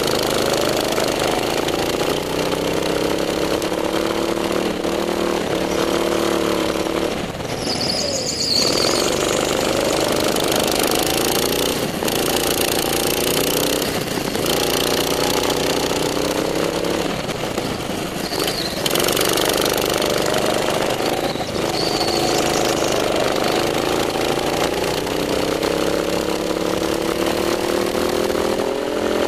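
Racing go-kart engine heard from the driver's seat. It revs up repeatedly along the straights and falls away into the corners, with a few brief high squeals in the turns.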